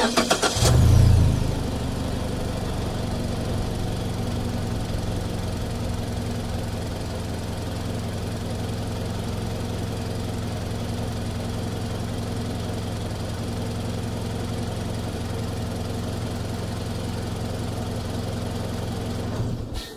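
Mazda CX-5 small SUV's engine, heard from outside at the front. The starter cranks briefly, the engine catches with a short rev flare about a second in, settles into a steady idle, and is switched off near the end.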